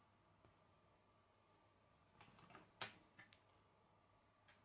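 Plastic K'nex connectors and rods clicking and rattling as they are handled and fitted together: a faint click about half a second in, then a short cluster of clicks and rustling in the middle, the loudest near three seconds in.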